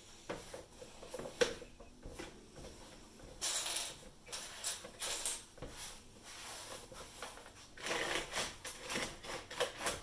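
Damp melamine foam (magic eraser) scrubbing the plastic case of a keyboard, in uneven rubbing strokes with a few light taps. The strokes are loudest about three and a half seconds in and again near the end.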